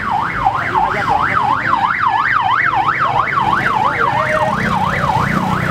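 Electronic vehicle siren on yelp, its pitch sweeping rapidly up and down about four times a second, over the rumble of passing vehicle engines.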